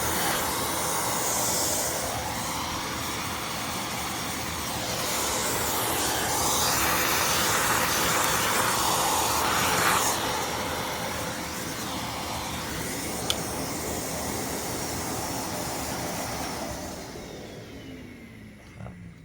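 Vacuum cleaner motor running with a steady rushing hiss, swelling slightly in the middle, then winding down near the end.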